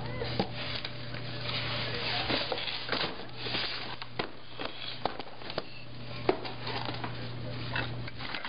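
Toys and picture books knocking and rustling in a plastic toy box as a toddler rummages through them: a string of irregular sharp knocks and clatters over handling rustle.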